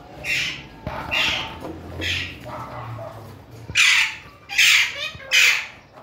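Alexandrine parakeet giving a run of short squawks, about one a second, the calls growing louder about four seconds in.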